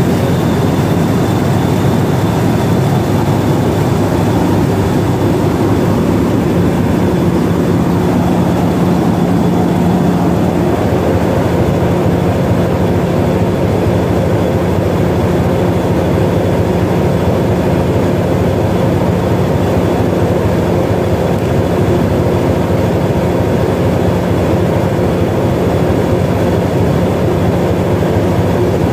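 Class 50 diesel locomotive's English Electric 16-cylinder engine running steadily while it stands at the platform: a loud, even drone with a steady hum through it.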